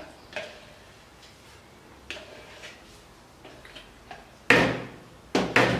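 Quiet handling sounds of a spatula scraping egg yolks out of a small plastic cup into a mixing bowl, with a few faint clicks. About four and a half seconds in comes a sudden louder clatter that fades quickly, and two more short knocks follow near the end.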